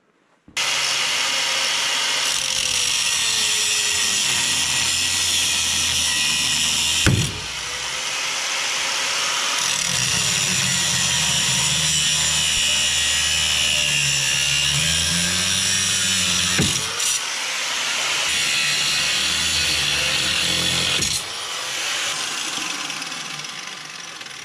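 Angle grinder with a cutoff disc cutting through rust-seized steel U-bolts on a truck's rear leaf-spring mount. It runs almost without a break, its pitch sagging and recovering as the disc bites into the metal.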